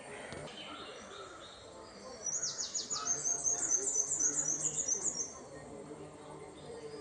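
A bird singing a fast run of high, falling notes for about three seconds, starting about two seconds in.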